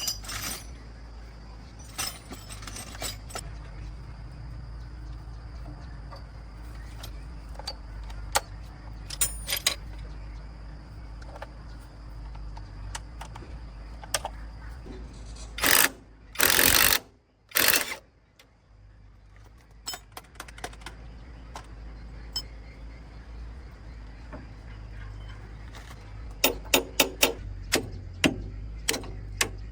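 Metal tools and parts clinking and knocking in scattered single strikes over a steady low hum. Three short, loud rushes of noise come in quick succession about sixteen to eighteen seconds in, and a quick run of clicks follows near the end.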